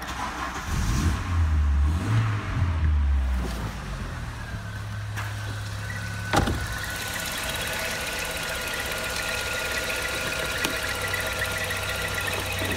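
Audi A6 C4's 2.0-litre ABK inline-four petrol engine starting, running unevenly for a few seconds, then settling to a steady idle. There is one sharp click about six seconds in.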